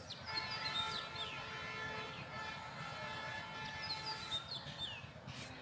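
A distant steady horn- or siren-like tone, several pitches sounding together, held for about four seconds and then stopping. Birds chirp in short falling calls over it.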